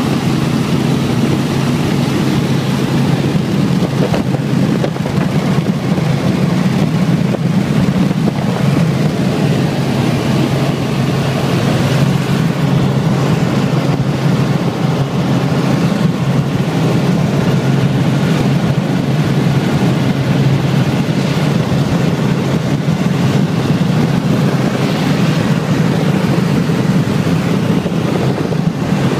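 Helicopter engine and rotor running steadily in cruising flight, heard from inside the cabin as a loud, even drone.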